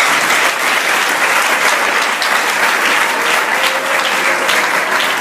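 Congregation clapping hard and steadily, a dense sustained round of applause.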